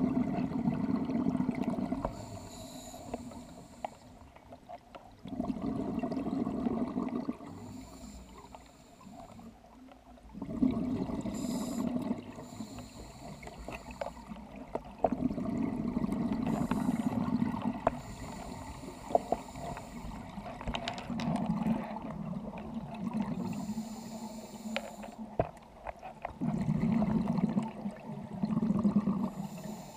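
Scuba diver breathing through a regulator underwater: exhaled bubbles gurgle out in bursts of one to three seconds, about every five seconds, with quieter stretches between.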